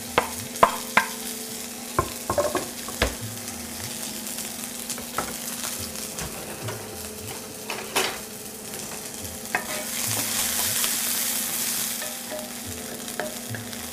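Chopped onion and garlic sizzling in olive oil in a cast-iron skillet. Sharp clicks in the first few seconds from a knife scraping the pieces off a wooden cutting board into the pan, and the sizzle grows louder from about ten seconds in as they are stirred.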